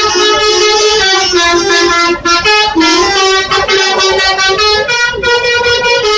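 Bus's multi-tone 'telolet' musical horn playing a melody, one note stepping straight into the next without a break.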